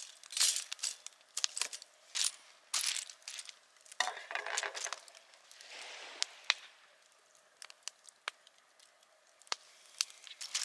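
Plastic baggie crinkling and rustling in short bursts as cod tongues are shaken in fish-crisp coating, followed in the second half by a scatter of sharp clicks and clinks.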